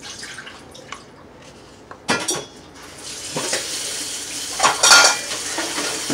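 A spoon clattering and scraping inside a plastic funnel, poked down to push filling into a water-filled balloon, with louder clusters of knocks about two seconds in and again near five seconds. A steady hiss comes in about three seconds in.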